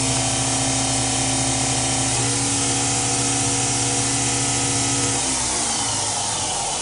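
Acroloc M10 CNC mill spindle, belt-driven by its original Gettys spindle motor, running in high range with a steady whine. About five seconds in, the pitch starts falling as the spindle spins down.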